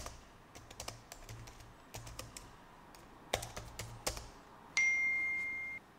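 Typing on a laptop keyboard: scattered key clicks, some in quick runs. Near the end a single steady, high electronic tone sounds for about a second and cuts off.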